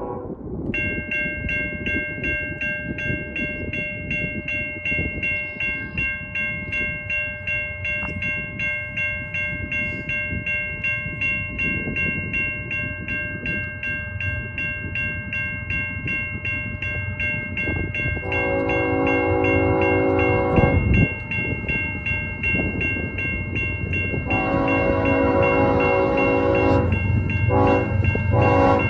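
Locomotive air horn on a GE Evolution-series (GEVO) locomotive leading a freight train: one long blast about 18 seconds in, a second long blast about 24 seconds in that breaks into a run of short toots near the end, over a rumble that grows louder as the train nears. Before the horn, a bell rings steadily in a regular pulse.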